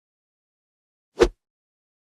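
One heavy footstep, a single short thud about a second in, against dead silence.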